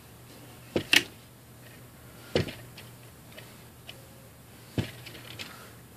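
A few sharp, irregularly spaced plastic clicks and knocks as hands handle a plastic peg loom and the yarn woven on it. The loudest is a double click about a second in.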